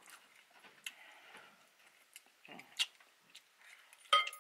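Close-up eating sounds: soft mouth clicks and smacks while chewing spicy cheesy ramen noodles. A short ringing clink comes near the end.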